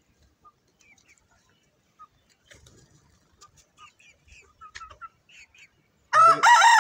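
Soft, scattered chicken clucks, then near the end a young rooster starts a loud crow.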